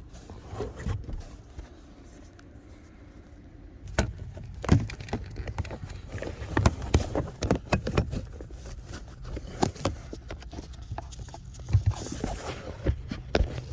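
Hands working plastic parts around a car's cabin air filter: faint rustling at first, then from about four seconds in a busy run of irregular clicks, knocks and scrapes.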